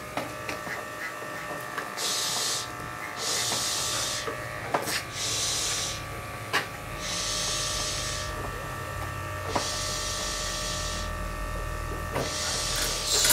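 Electric dog grooming clippers running with a steady hum, with short hisses every second or two.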